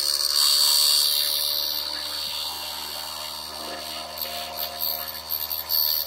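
Small bench milling machine running with a 3 mm carbide slot drill side-milling a switch rail as the table is fed through the cut. A loud, high-pitched cutting whine and hiss sit over the motor's steady hum, loudest in the first second or so and again near the end.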